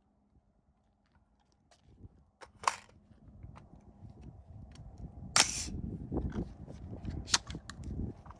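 Three single gunshots from a micro AR pistol in 5.56 with a 5-inch barrel, about two seconds apart, the middle one loudest. A low rumble runs under them from about two seconds in.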